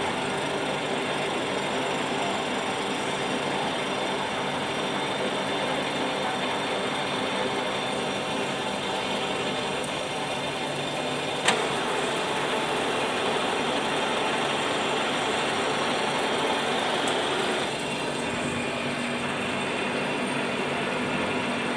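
WMW BFT 80 horizontal boring machine running with a steady mechanical hum of its motor and gearing. There is one sharp click about halfway through, and the tone changes near the end.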